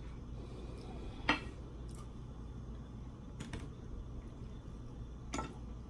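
Knife and fork clinking and scraping on a plate as steak is cut, a few short sharp clicks with the loudest a little over a second in, over a steady low hum.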